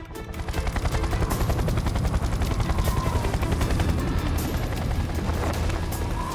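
Helicopter rotor sound effect, a fast steady chop that fades in over the first half second.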